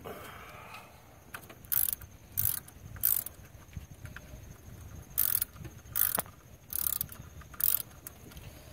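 Hand ratchet clicking in about seven short bursts of strokes as it works the bolts loose on an E36 BMW's water pump pulley.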